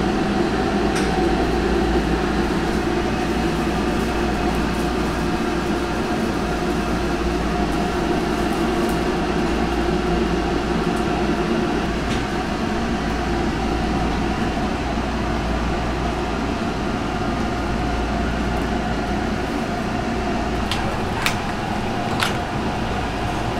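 Steady kitchen hum of ventilation and gas burners under pots of boiling bone broth, with a few short sharp clicks near the end.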